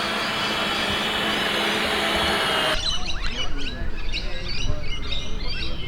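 A steady mechanical whir with faint steady tones, which cuts off abruptly a little under three seconds in. Many birds then chirp over a low wind rumble on the microphone.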